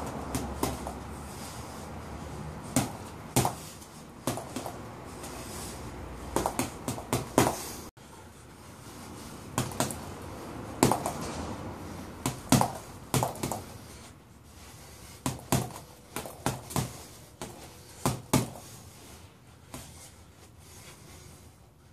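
Boxing gloves punching a reflex ball hung on a cord, in irregular sharp smacks, often two or three in quick succession, with gaps between combinations. A low hum sits under the first third and cuts off abruptly.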